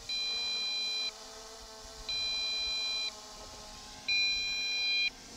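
MJX Bugs 5W transmitter sounding its low-battery warning: three steady beeps of about a second each, a second apart, warning that the quadcopter's flight battery is nearly flat.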